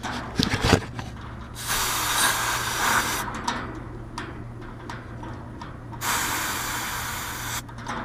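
A few clicks, then two short bursts of pressurised refrigerant hissing out at the AC gauge-set hoses as they are purged, each about a second and a half long, starting and stopping sharply.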